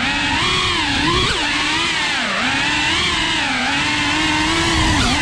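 Brushless motors and propellers of a 3.5-inch cinewhoop FPV drone whining, the pitch wavering up and down constantly as the throttle changes.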